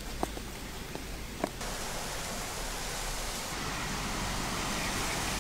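A few light clicks, then a steady, even hiss that sets in abruptly about one and a half seconds in.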